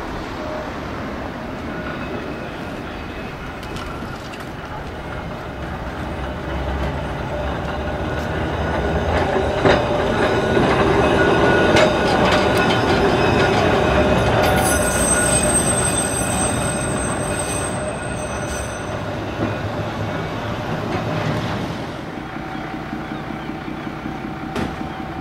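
Blackpool double-deck tram running past on the rails, its wheels giving a steady squealing whine over a low rumble. The sound swells as the tram passes close, loudest around the middle, then fades.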